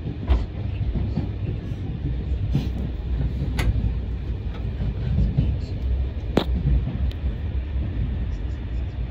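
A night Intercités train running through an underground station, heard from inside the carriage: a steady low rumble broken by a few sharp clicks.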